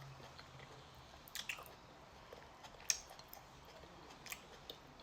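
A person chewing a mouthful of fufu with okra stew and tripe, with a few soft wet mouth clicks, the sharpest about a second and a half in and about three seconds in.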